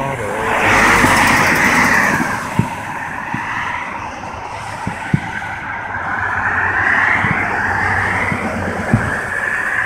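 Cars passing close by on a road, their tyre noise swelling loudly about a second in and again near the end. A few sharp low thuds of distant fireworks sound in between.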